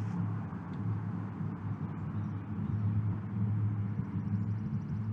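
Chainsaw engine idling steadily with a low, even hum.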